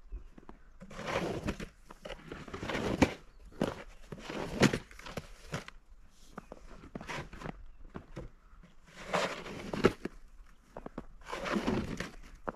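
Snow shovel pushing and scraping snow across a driveway in repeated strokes, each about a second long, with a few sharp knocks of the blade.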